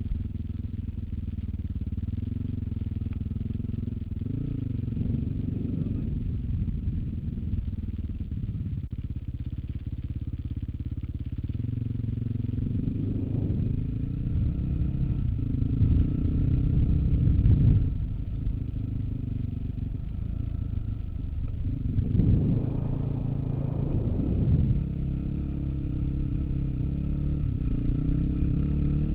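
Off-road motorcycle engine on a trail ride, pitch rising and falling with the throttle, with louder revs about halfway through and again a few seconds later.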